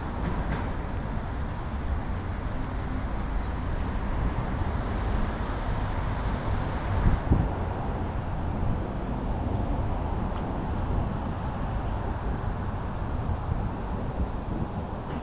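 City street ambience: steady traffic noise with a deep rumble, and a brief knock about seven seconds in.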